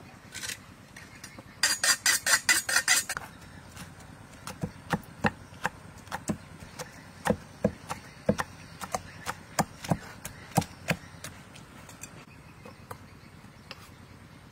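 Kitchen knife chopping on a thick wooden chopping block: a fast run of about a dozen strokes near the start, then slower, heavier chops at an uneven pace of two or three a second, which stop a few seconds before the end.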